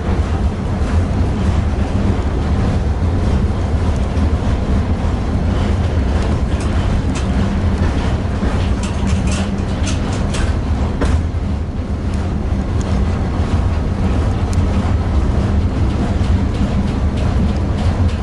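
Tatra T6B5SU tram running along the track with a steady low rumble. A cluster of sharp clicks and knocks comes from the wheels on the rails about halfway through.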